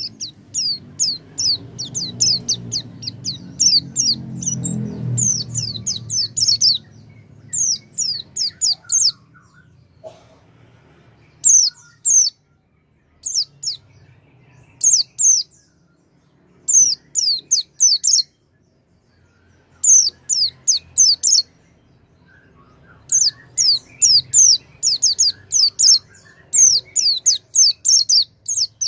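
Pleci (white-eye) song: bursts of rapid, high, falling chirps in phrases of one to two seconds, broken by short pauses. This is a recorded song played to get a silent pleci to start singing.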